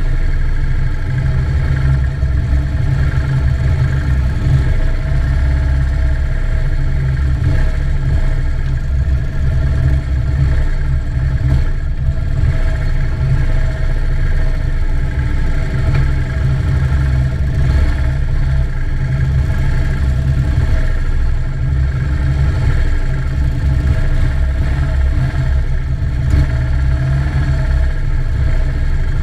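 Police motorcycle engines running steadily at a slow procession pace, heard from a camera mounted on one of the bikes, with a deep low hum.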